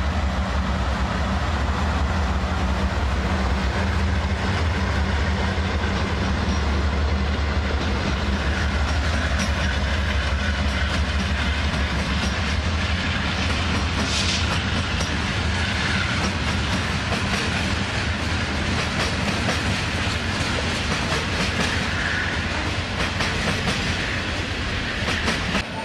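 A lashup of BNSF diesel-electric locomotives pulls a departing freight train past, their engines giving a deep, steady drone. The drone eases about halfway through as the tank cars follow, leaving the clatter and clicking of steel wheels over the rail joints.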